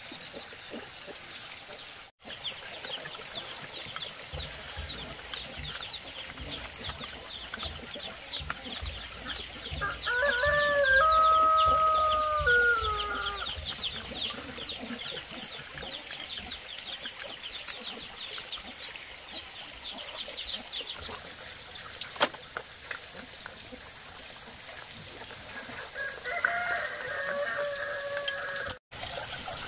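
A rooster crowing: one long crow about ten seconds in, and a second, fainter one near the end that cuts off abruptly. A fast, high chirping runs underneath through the first two-thirds.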